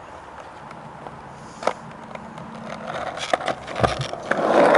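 Skateboard rolling, getting louder from about three seconds in, with a few sharp clacks along the way.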